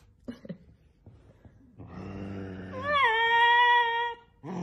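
Small dog growling low, the growl breaking into a long high-pitched whining howl that swoops up and holds for about a second before stopping.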